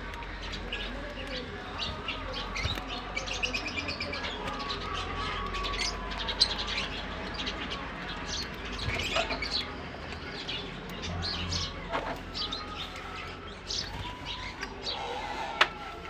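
Aviary birds chirping and twittering, a busy overlapping mix of short high calls, with a sharp click about six seconds in and another near the end.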